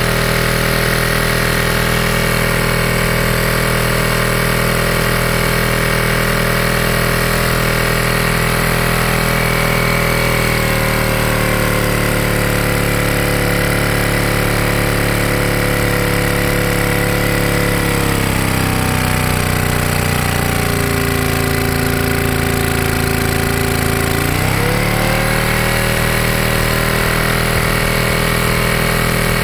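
1924 Johnson Model A 2 horsepower outboard motor, a two-cylinder two-stroke, running under way. Its speed drops about ten seconds in, drops further a little past halfway, then picks back up about five seconds before the end.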